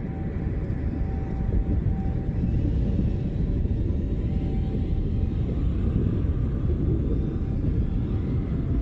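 A deep, steady rumble that grows a little louder about a second and a half in, with a few faint held tones in the first half.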